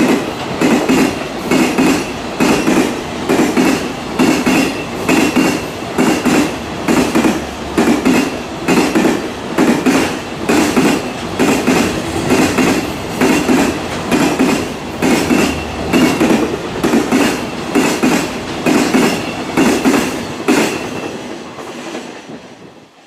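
A long freight train of container flatcars passing close by, its wheels clacking over the rail joints in an even rhythm of about one and a half beats a second. A faint high steady ring runs over the clacking. The sound fades out near the end.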